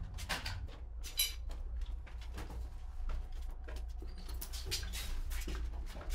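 Irregular light clicks and taps of hand work with small parts in a paint-brush workshop, over a steady low hum.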